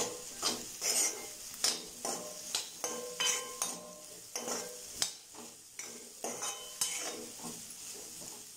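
Steel ladle scraping and knocking against a steel kadai as diced potatoes are stirred and fried in oil, with a sizzle underneath. About two strokes a second, some with a short metallic ring, growing fainter near the end.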